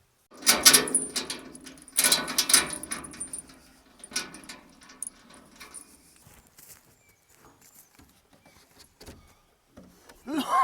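Two bursts of jangling, rattling metal about a second and a half apart, each trailing off, followed by lighter scattered rattles.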